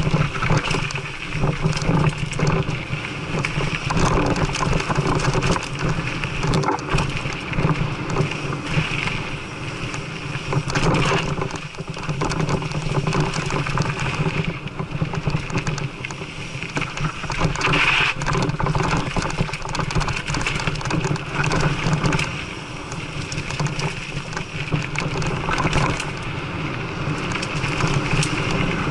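Mountain bike ridden along a dirt single-track trail: a continuous rush of tyre noise on the packed dirt with constant, irregular rattling and knocking of the bike over the bumps.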